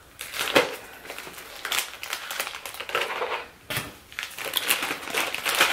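Thin plastic packaging crinkling and rustling in irregular bursts with small clicks as a bag of clear plastic binder pocket pages is cut open with scissors and handled.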